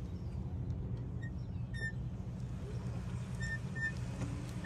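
Quiet outdoor ambience: a steady low rumble with a few short, high chirps scattered through it.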